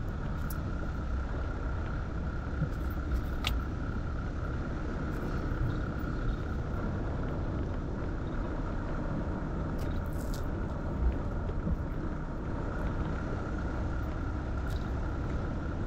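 A road vehicle driving along a paved street: steady low engine and road rumble with a constant hum, and a few faint ticks.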